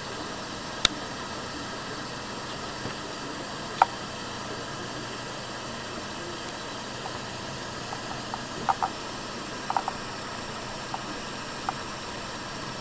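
Steady machine-like hum and hiss, broken by a few short sharp clicks scattered through it, two of them in quick pairs.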